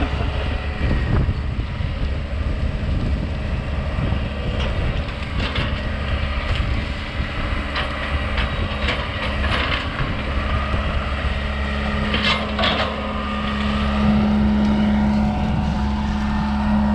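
John Deere 120 excavator's diesel engine running steadily while it works the brush pile, with scattered cracks and crunches of wood. The engine note grows louder about three-quarters of the way through.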